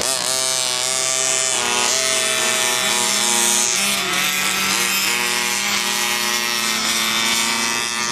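Two gas-powered RC buggy engines running hard, a high-pitched buzzing whine that rises and falls as the cars throttle up and back off.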